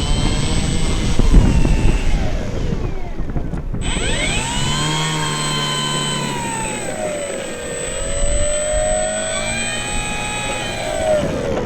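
Arrows RC Husky 1800mm's electric brushless motor and propeller (3541 KV750 motor on a 45A ESC, 4S) whining under throttle: the pitch sweeps up sharply about four seconds in, sags and climbs again, then drops near the end. Heavy wind buffeting on the microphone in the first few seconds.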